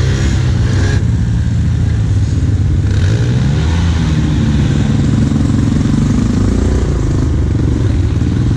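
ATV engine running as the quad rides along a dirt trail, its note rising and falling with the throttle.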